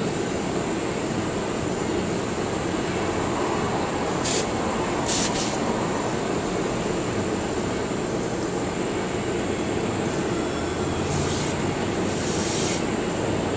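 Aerosol brake cleaner sprayed in short bursts, two about four to five seconds in and two more around eleven to thirteen seconds in, over a steady low rumble of shop background noise.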